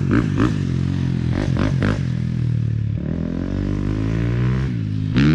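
Dirt bike engine running and revving, its pitch falling and rising as the throttle is eased and opened, with a few short knocks about a second and a half in.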